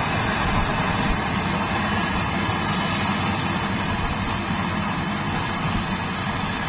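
Maxxi Bimo rice combine harvester running steadily while cutting and threshing rice: an even engine drone under a broad machinery hiss, with no change in pace.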